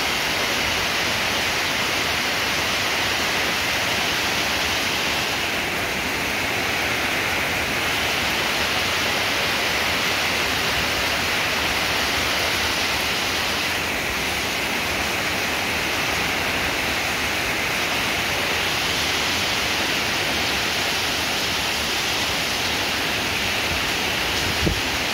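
Heavy downpour pouring steadily onto a flooded road and the surroundings, a dense, even hiss of rain. A single brief knock sounds near the end.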